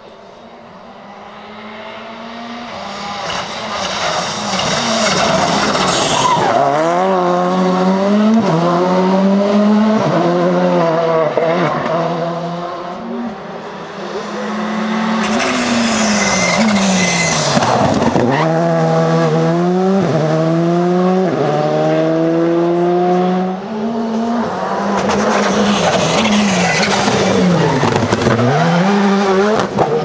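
Rally cars driven flat out on a stage, one after another, one of them a Škoda Fabia R5. Their engines rev up through the gears, the pitch climbing and then dropping sharply at each shift. The first car comes in from a distance and grows louder over the first few seconds.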